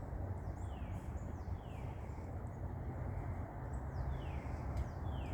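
A bird calling outdoors, giving four clear whistled notes that slide down in pitch, two early and two near the end, over a steady background hiss.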